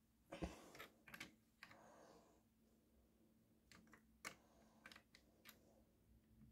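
Faint, scattered clicks and taps of plastic Lego pieces being handled and fitted onto a built Lego set, about a dozen small separate clicks with a pause in the middle.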